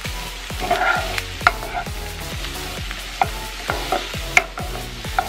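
Diced onion sizzling in oil in a nonstick frying pan while a wooden spoon stirs it, scraping the pan with a few sharp clicks.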